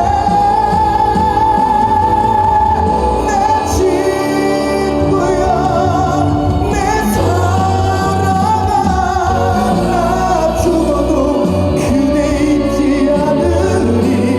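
Live trot song with band backing and a sung melody, opening on a long held note.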